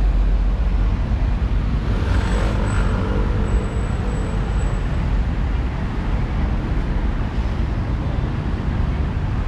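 Street traffic: cars and other road vehicles running past in a steady low rumble, swelling briefly about two seconds in, with a faint high whine for a few seconds.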